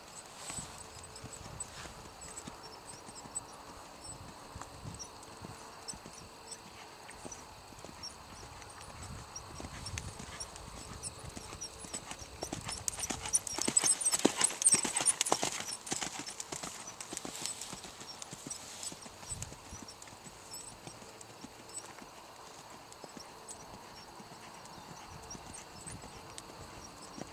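Hoofbeats of a ridden Percheron Paint gelding on a dirt arena, a run of soft thuds that grows louder around the middle as the horse passes close.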